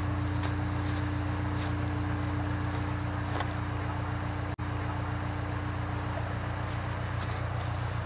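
Case 580K backhoe's diesel engine idling steadily: a low, evenly pulsing drone with a steady hum above it.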